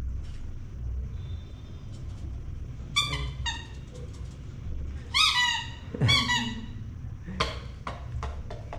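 Dog whining in short, high-pitched whimpers that fall in pitch, a few at a time and about half a dozen times in all, the loudest run a little past the middle.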